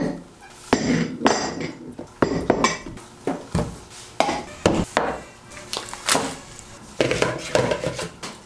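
Kitchen items set down one after another on a countertop: a lidded ceramic canister, a cardboard box of baking soda, a small bottle and stacked plastic mixing bowls, giving a string of irregular knocks and clinks.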